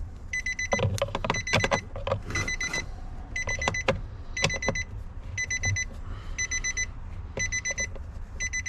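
2014 Nissan Frontier's cabin warning chime beeping with the key off and the door open, a quick run of high beeps repeating about once a second. Clicks and rattles of hand-tool work come in the first few seconds.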